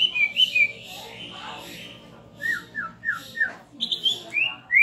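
Cucak ijo (green leafbird) singing: a run of short, clear whistled notes, with four quick downslurred notes about halfway through and sharp rising notes near the end.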